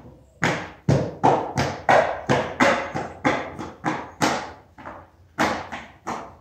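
Skateboard tic-tacking on a concrete floor: the front wheels knock down onto the concrete about three times a second, each knock echoing in a large hall, with a short break about two-thirds of the way through.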